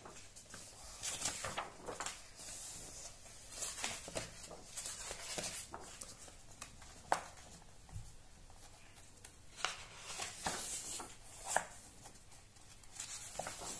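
Magazine pages being turned and handled: soft, irregular paper rustles and light flicks.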